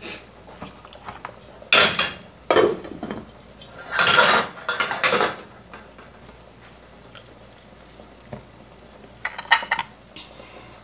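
Enamelware pot and lid clattering as the lid is set on the soup pot: a few clinks and scrapes, the loudest and longest about four seconds in, and a short rattle near the end.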